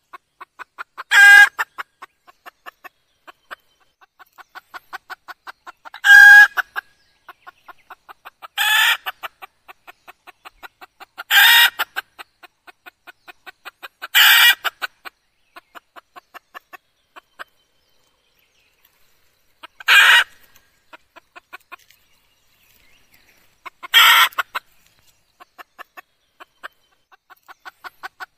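Red junglefowl hen calling: runs of soft, quick clucks, about three or four a second, build up to a loud short call every few seconds, seven times in all, with a lull of a few seconds past the middle.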